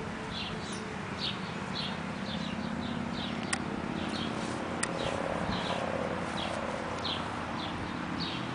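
A small bird chirping over and over, short high falling chirps about two a second, over steady wind noise, with two sharp clicks near the middle.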